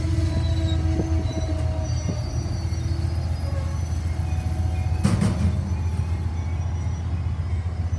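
Amtrak passenger train coaches rolling slowly past on the rails with a steady low rumble. A brief louder clatter of the wheels comes about five seconds in.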